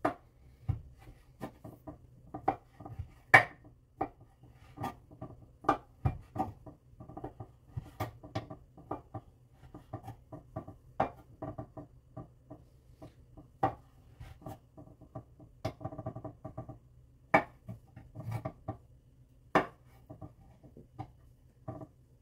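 Chef's knife cutting a block of tempeh into cubes, the blade knocking on a wooden cutting board in irregular strokes about one or two a second.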